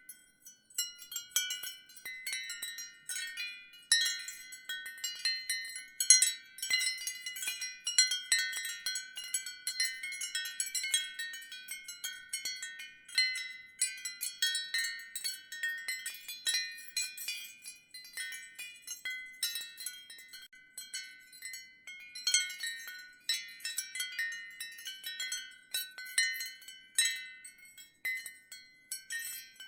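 Ceramic wind chimes clinking in the wind: many high, short notes struck irregularly and overlapping, each dying away quickly.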